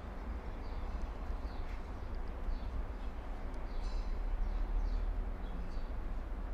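Small birds chirping faintly in short falling chirps, scattered irregularly over a steady low hum.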